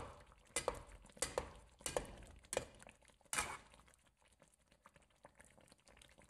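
A spatula scraping and knocking in a pan of simmering fish curry as gravy is spooned over tilapia fillets. There are about seven short strokes, roughly two a second, and they stop after about three and a half seconds.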